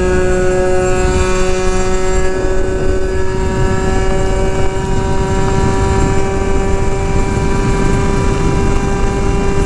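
72cc Polini-kitted Honda two-stroke scooter engine with a prototype S23 expansion-chamber pipe, held wide open at around 11,700–11,800 rpm: one steady high note that creeps slightly higher about two and a half seconds in, with wind rushing on the microphone.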